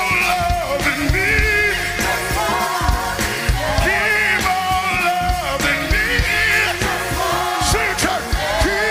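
Live gospel praise-break music: a male lead singer and backing vocalists sing through microphones over a full band with drums.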